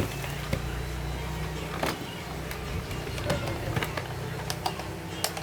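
Scattered light clicks and knocks of a plastic airsoft toy gun and its packaging being handled, over a steady low hum.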